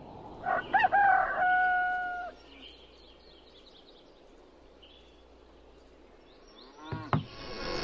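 A rooster crowing once, a cock-a-doodle-doo ending on a long held note, followed by faint birds chirping and a creak near the end.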